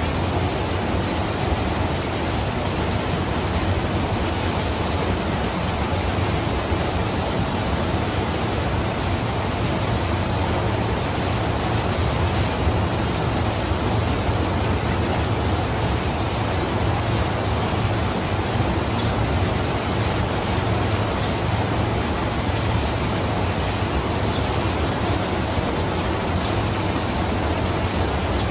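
Steady rushing of river water running over a small rocky cascade.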